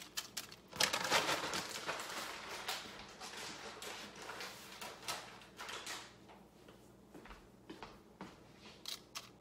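Dried scalloped-potato slices rustling and crackling as they are handled and dropped into a casserole dish. The rustle thins out about six seconds in to a few scattered clicks.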